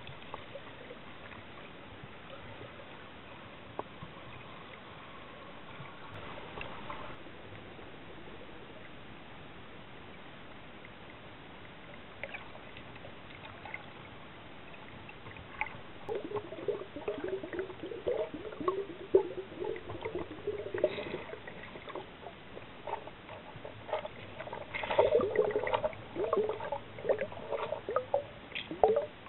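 Muffled underwater sound around a submerged camera: a steady hiss, then from about halfway on, irregular gurgling and bubbling with scattered clicks, busiest near the end.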